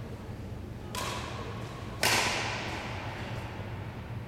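Two sharp knocks about a second apart, the second much louder, each ringing out in the echo of a large gymnasium hall.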